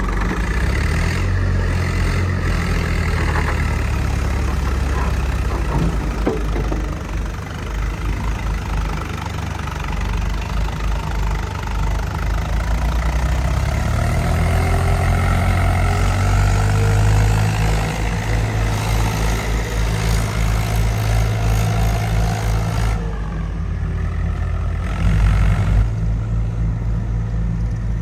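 Diesel engine of heavy farm and construction machinery running steadily, then revving up under load about halfway through.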